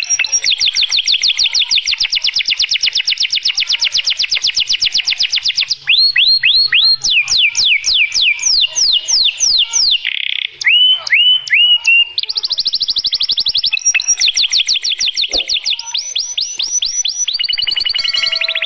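Domestic canary singing a long varied song. Fast, even trills give way in the middle to a run of separate downward-sweeping whistled notes that slow and hook, then fast trills return for the last third.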